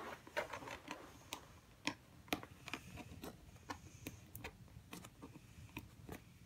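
Fingers picking and peeling packing tape off a cardboard shipping box: a faint run of small, irregular clicks and crackles, about two or three a second.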